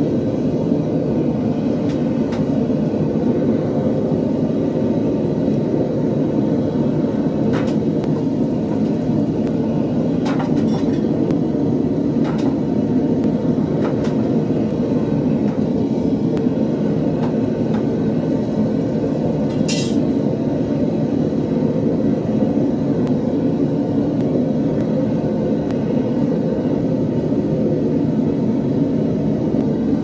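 Gas burner of a home-made metal-melting furnace running with a steady rushing roar. A few light metal clicks and clinks from the skimming and stirring tool sound over it, the sharpest about twenty seconds in.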